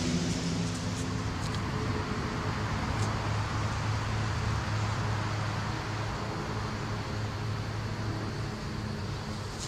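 Steady outdoor background noise: an even hiss with a low steady hum underneath and a few faint ticks.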